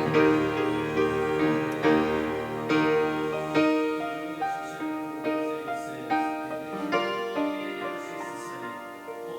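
Piano playing a sequence of struck chords and single notes, each ringing and dying away, getting gradually softer toward the end.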